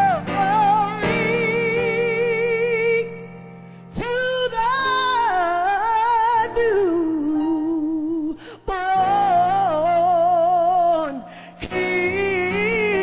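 Gospel song: a solo voice sings long, sustained notes with wide vibrato over steady instrumental accompaniment, in phrases separated by short breaks.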